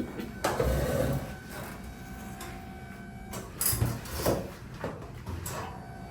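Rustling and a few soft thumps as a body and clothing shift on a padded treatment table under a therapist's hands, over a steady faint hum.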